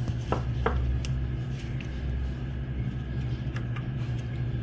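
A few light clicks of small metal parts as a needle bearing is handled and fitted into a rocker arm for a trunnion kit, over a steady low hum.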